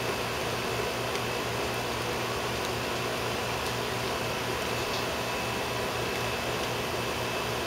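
Steady fan-like hum and hiss of room background noise, with a few faint ticks.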